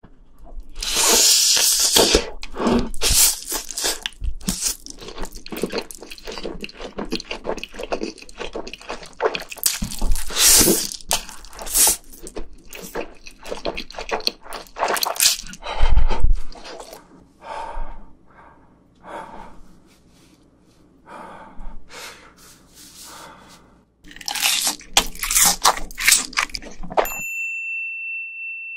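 Close-miked ASMR eating sounds: spicy Buldak fire noodles slurped off chopsticks and chewed, with wet smacking and crunchy bites. About 27 seconds in the eating stops and a steady high beep tone sounds.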